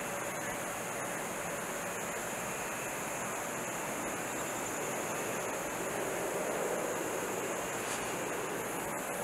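Steady outdoor background noise: an even rushing hiss with no distinct events, swelling slightly about six to seven seconds in.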